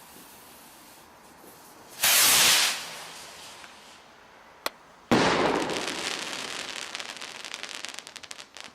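Fireworks going off. A loud hiss lasts under a second about two seconds in. A single sharp pop follows, then a loud bang and a long crackling that slowly fades.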